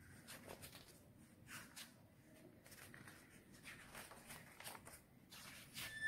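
Faint rustling and soft taps of paper from a textbook being handled, with a louder rustle near the end as its pages are turned.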